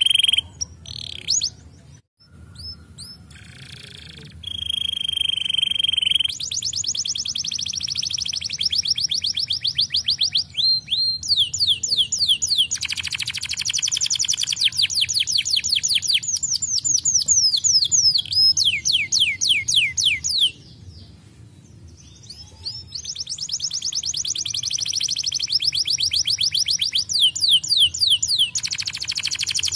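Domestic canary singing: long, fast trills of rapidly repeated falling notes, with a held whistled note about five seconds in and brief pauses near two seconds and about two-thirds of the way through.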